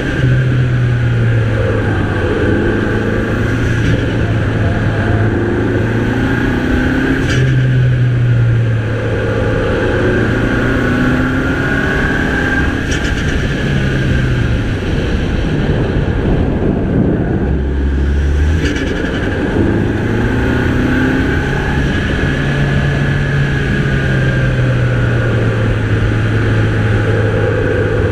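A Mini Cooper's 2.0-litre turbocharged four-cylinder engine under way, repeatedly pulling hard and easing off through bends, its pitch climbing and falling every few seconds. A few brief sharp clicks come between the pulls.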